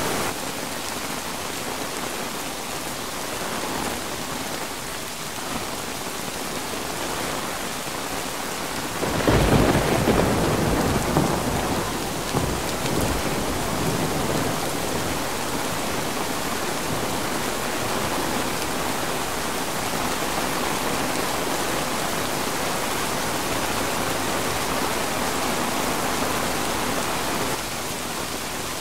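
Steady heavy rain, with a peal of thunder rumbling in about nine seconds in and dying away over a few seconds.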